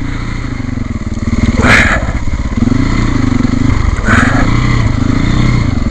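Trail motorcycle engine running at low speed, the throttle opened and closed in turn so the pitch rises and falls as the bike picks its way along muddy ruts. Two short rushes of noise cut in about two seconds and four seconds in.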